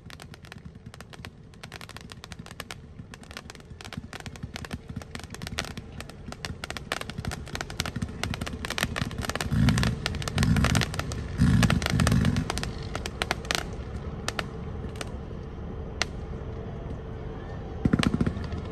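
Consumer aerial fireworks barrage: a dense, rapid stream of crackling pops and reports, with a run of four heavier booms about halfway through and another loud burst near the end.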